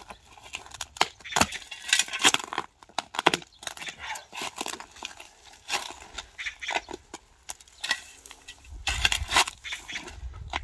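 Metal spade blade chopping and scraping into stony, dry soil, an irregular run of gritty scrapes and sharp knocks as it strikes stones and gravel.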